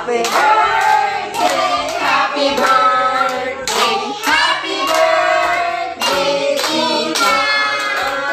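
A small group of adults and children singing together, clapping their hands along with the song.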